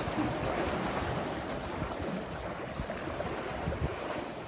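Sea waves washing and splashing among breakwater concrete blocks, a steady rushing noise, with a few soft low bumps.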